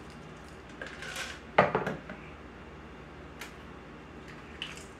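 Peppercorns pouring from a glass jar into a pepper grinder, with clinking of glass against the grinder and the counter. There is a sharp, loud clink about one and a half seconds in, followed by a few lighter clicks, and one more light click about halfway through.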